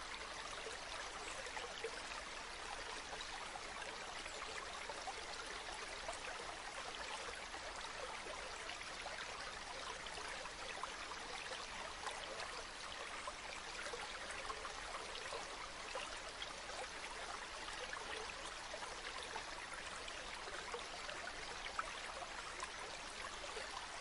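A stream flowing steadily: an even, unbroken rush of running water.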